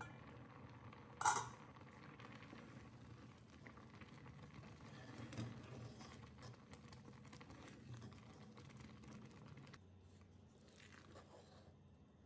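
A steel lid lifted off a clay cooking pot and set down with a sharp metallic clink about a second in, then a wooden spatula stirring thick cooked rice-and-lentil pongal. A steady low hum runs underneath and stops near the end.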